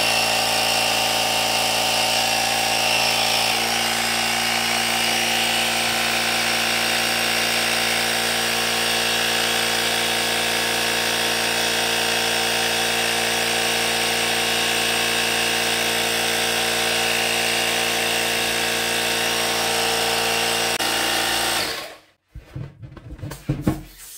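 Parkside PAK 20-Li B2 cordless compressor running steadily while inflating a beach ball through a valve adapter, then cutting off abruptly about 22 seconds in. After that come a few short handling clicks and rustles as the adapter is pulled from the ball's valve.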